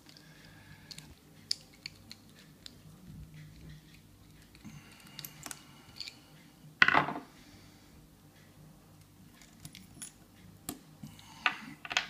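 Small metallic clicks and taps of a disassembled American Series 700 padlock being handled as its pins and pin-tumbler core are taken out onto a pinning mat, with one louder metallic rattle about seven seconds in.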